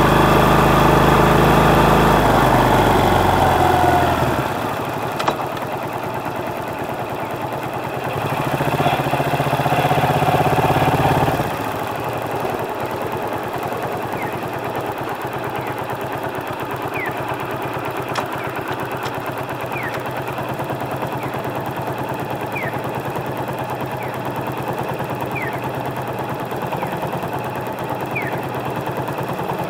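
Motorcycle engine picked up by a microphone under the seat: running under way, then dropping in pitch and level about four seconds in as the bike slows, a brief rise around nine seconds, and from about twelve seconds on idling steadily at a stop. Faint short chirps repeat every few seconds near the end.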